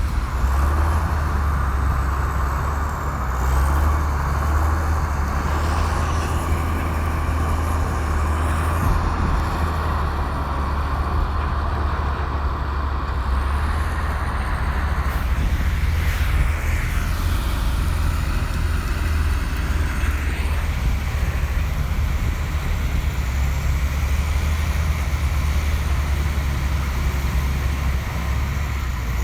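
Komatsu bulldozer's diesel engine running steadily, with a deep low hum throughout and a couple of brief rising whines past the middle.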